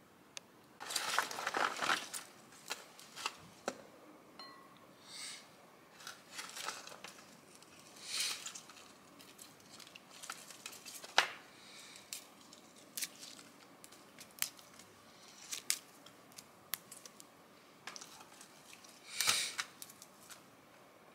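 Pho takeout containers and packaging being handled: irregular plastic rustles and crinkles with sharp clicks, the longest rustle near the start and another near the end, and one sharp click about eleven seconds in.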